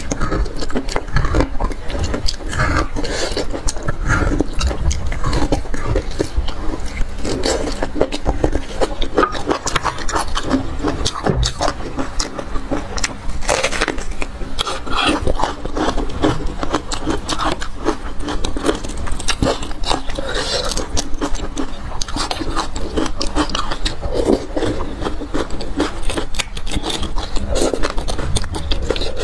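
Close-miked eating of braised marrow bones: wet sucking, smacking and chewing, with many short mouth clicks. Partway through comes a bite into raw red onion, and near the end a metal utensil scrapes marrow out of a bone.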